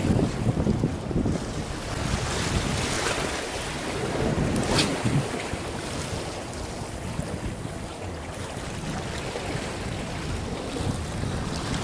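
Sea waves washing against concrete breakwater tetrapods, with wind buffeting the microphone in gusts near the start. One short sharp sound a little under five seconds in.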